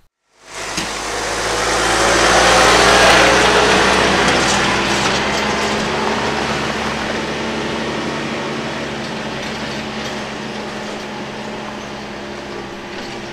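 Compact utility tractor's diesel engine running as the tractor drives past and away; it cuts in suddenly, is loudest about three seconds in, then slowly fades.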